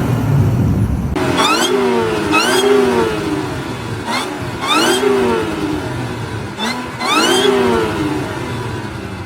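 Supercharged performance car engine being revved in about four blips over its idle, the pitch rising and falling with each rev.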